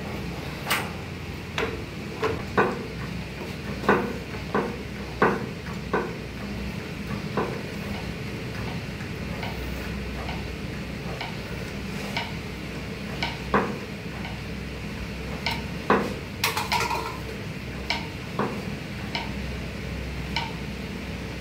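Hose-fed hydraulic crimping tool pressing a connector onto a 300 mm² single-core copper cable conductor. Sharp metallic clicks and clinks come at irregular intervals over a steady low hum.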